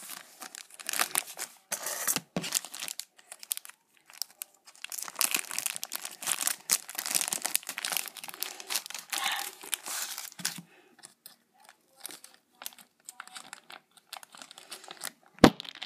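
Plastic wrapping on a pack of 100 card sleeves crinkling and tearing as it is handled and opened: a dense run of crackles that thins to scattered crinkles about ten seconds in, with a sharp click near the end.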